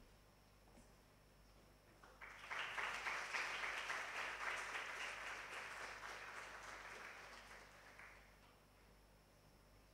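Audience applauding, starting about two seconds in, strongest at first and fading out over about six seconds.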